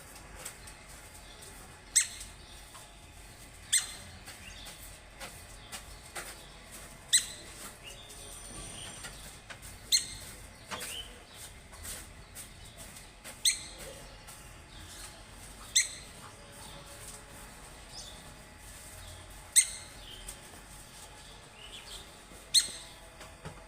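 Woodpecker calling: single sharp, high call notes repeated about every two to four seconds, eight times, with fainter chirps between them.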